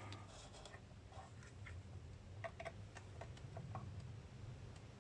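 Faint, scattered light ticks of multimeter probe tips being set against resistor leads and handled, over a low steady hum.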